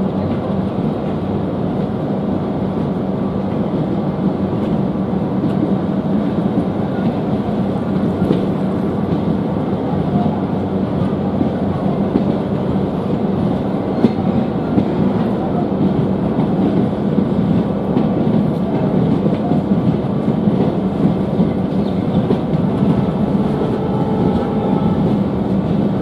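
Passenger train pulling out of a station, heard from an open coach doorway: a steady rumble of the running gear with wheels clacking over the rails, and one sharper clack about halfway through.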